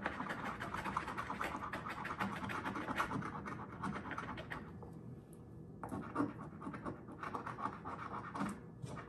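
Scratch-off lottery tickets being scraped: fast, continuous scratching strokes that let up briefly about five seconds in, then carry on.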